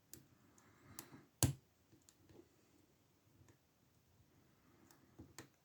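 Faint metallic clicks and scrapes of a lock pick and tension wrench working the pins inside an old Ruko padlock, a few sharp clicks in the first second and a half, the loudest about a second and a half in, then a few softer ones near the end. The picker feels he is just missing one pin, so the lock is not yet open.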